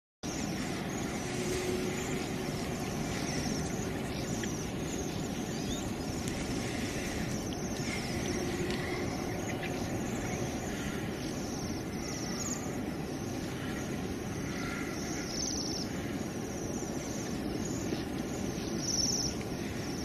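Outdoor ambience that starts abruptly: a steady, even rushing noise with faint, scattered bird chirps.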